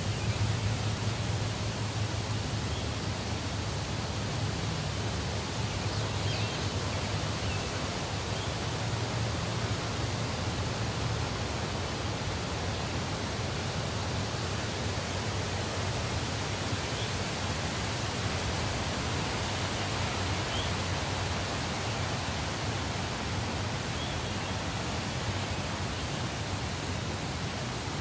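Forest stream running over rocks: a steady rush of flowing water, with a few faint high chirps now and then.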